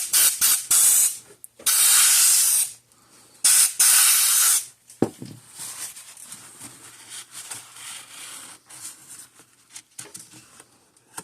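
Pressurised spray hissing in bursts, as from a can or air nozzle being used to clean a scale indicator's circuit board: a few quick squirts, then two longer blasts of about a second each. A low knock follows.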